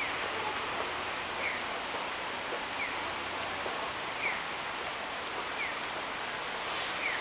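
Steady hiss of outdoor street ambience, with a faint short falling chirp repeating about every second and a half.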